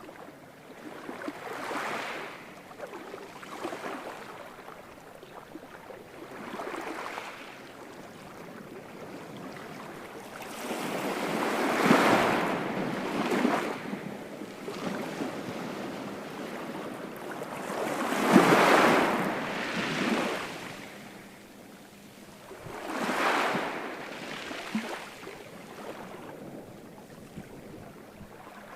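Ocean waves breaking, each one swelling into a hiss and fading away over a couple of seconds, the two biggest about 12 and 19 seconds in.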